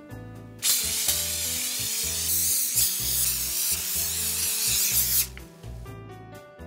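Aerosol can of cooking oil spraying in one continuous hiss of about four and a half seconds, starting just under a second in and cutting off near the end, over background music with a steady beat.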